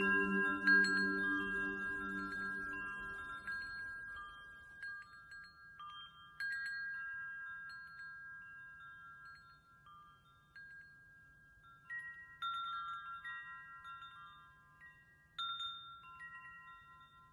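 Metal-tube wind chimes ringing, with fresh strikes now and then, about a second in, around six seconds in, twice near twelve seconds and again near fifteen; the tones die away slowly between strikes. A lower hum underneath fades out within the first few seconds.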